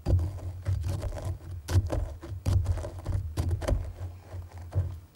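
Stone pestle pounding and grinding hard frankincense resin tears in a granite mortar: irregular sharp knocks, about one or two a second, each with a low thud.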